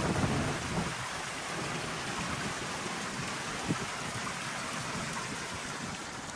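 Steady hiss of outdoor background noise, with a low rumble that fades out about a second in and a single soft thump a little past the middle.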